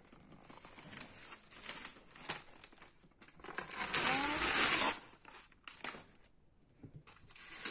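Old wallpaper being torn off a wall: scattered crinkling and short rips, with one louder, longer tear about four seconds in.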